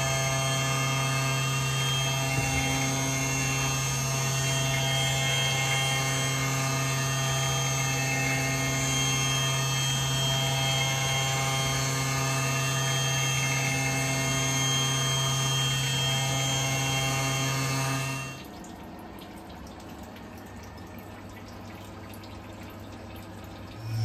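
CNC milling machine running steadily with flood coolant splashing on an aluminium part, a constant spindle whine with a slight rise and fall every couple of seconds. About 18 seconds in the spindle tone cuts out, leaving a quieter machine hum.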